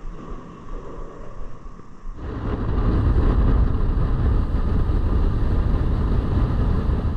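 A boat under way, its motor running with rushing wind and water noise; the noise jumps much louder about two seconds in and then holds steady.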